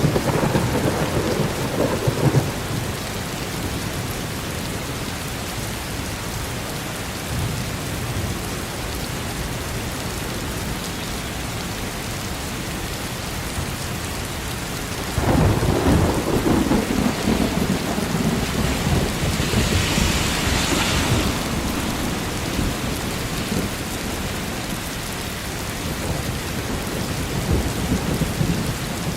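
Steady rain with rolls of thunder: a rumble right at the start, then a louder one that breaks suddenly about halfway through and rolls on for several seconds.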